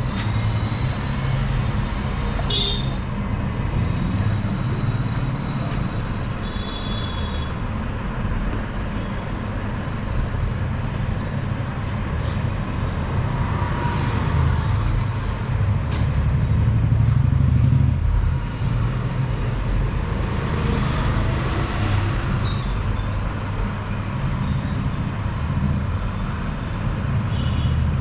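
Rumble of vehicle traffic that swells and fades as vehicles pass, with a horn toot near the start.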